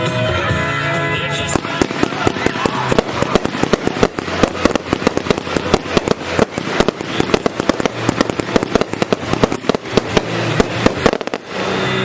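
Rapid barrage of firework bangs and crackles, many reports a second. It starts about a second and a half in over music and stops abruptly near the end.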